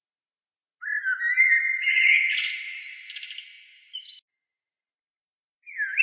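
A songbird singing a warbling phrase of sliding, whistled notes with a quick trill in the middle, lasting about three seconds from about a second in. It cuts off abruptly, and another phrase begins near the end.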